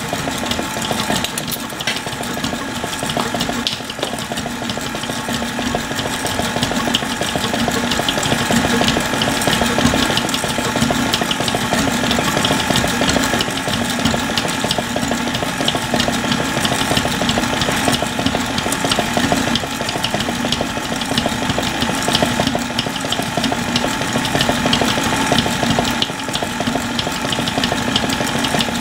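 KitchenAid stand mixer running steadily on its 'stir' speed, the wire whisk attachment turning through dry brownie ingredients (sugar, flour, cocoa powder) in the stainless steel bowl, with a steady motor hum.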